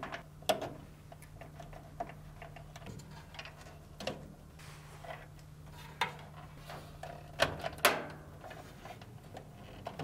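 Plastic wiring-harness plugs being pushed and wiggled into a dryer's motor control module: scattered light clicks and rattles, the loudest two clicks coming close together past the middle. A faint low hum runs underneath and fades out near the end.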